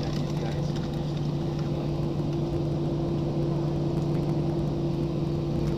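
Steady cabin hum of a jet airliner on the ground before takeoff, engines idling, with two constant low tones over an even rush of noise.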